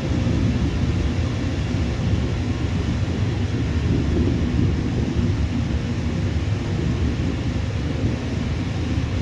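Jet aircraft engines rumbling steadily, a deep noise with no sudden changes.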